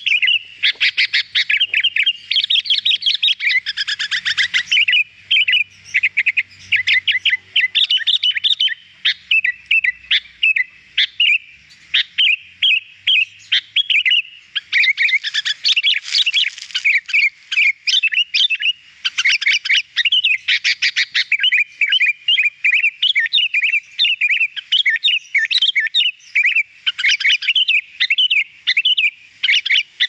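Sooty-headed bulbul (kutilang) in full, nonstop song: a rapid, unbroken stream of loud chirps and whistled notes.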